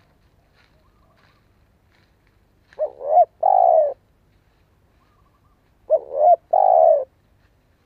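Spotted dove cooing: two phrases about three seconds apart, each a short coo, a rising coo, and a longer held coo. Faint twittering of small birds in the gaps.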